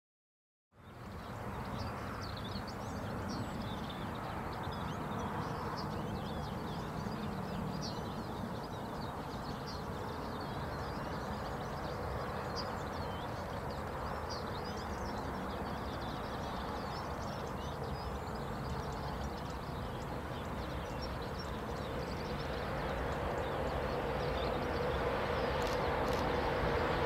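CRRC Bison electric locomotive approaching, its running hum faint at first and growing louder with a steady tone over the last few seconds. Birds chirp throughout.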